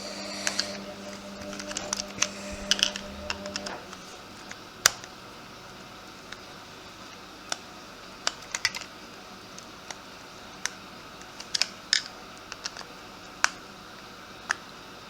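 Irregular sharp clicks and small scrapes of a cross-head screwdriver working screws out of a plastic Trackmaster toy train engine. A washing machine hums steadily in the background for the first four seconds.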